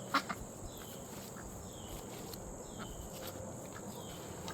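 A duck quacks briefly at the start, then a bird gives a short falling chirp about once a second.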